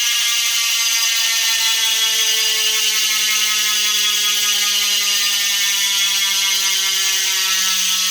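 Cadex 50mm Ultra rear hub freewheeling: a loud, continuous freehub buzz from the ratchet clicking as the wheel coasts, its pitch falling slowly as the wheel spins down.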